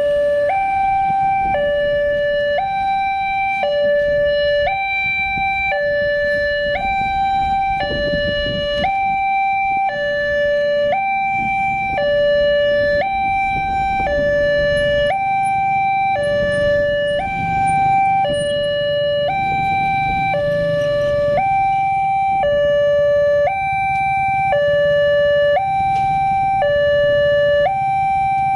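Railway level-crossing electronic warning alarm alternating steadily between a lower and a higher tone, each held about a second, warning that a train is approaching.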